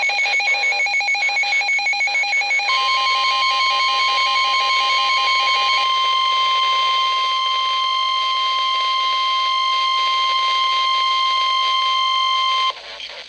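Emergency Alert System alert tones: a fast on-off pulsing electronic warble for the first few seconds, joined about three seconds in by the steady NOAA Weather Radio warning alarm tone. The steady tone holds for about ten seconds, outlasting the pulsing, then cuts off just before the end.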